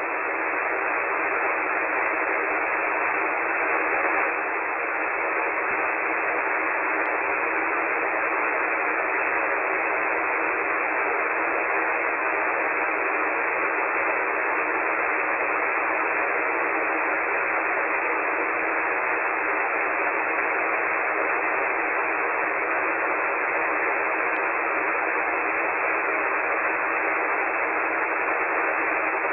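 Steady static hiss from a KiwiSDR web receiver tuned to 7.197 MHz lower sideband on the 40-metre amateur band, with no station coming through. The hiss is thin and narrow, like noise heard through a voice filter.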